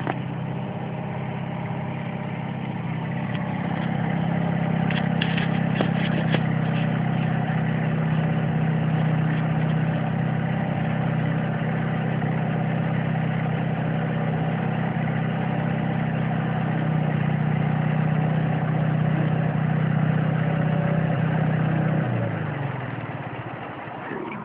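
Riding lawn mower engine running steadily, then shut off near the end, its pitch sinking as it winds down. A short run of clicks about five seconds in.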